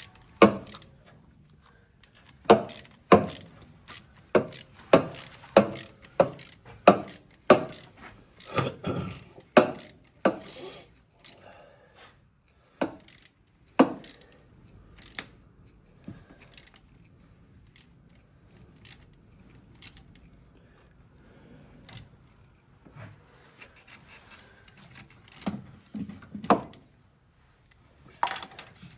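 A series of sharp clicks and knocks, about two a second at first, then sparser, with a few more close together near the end.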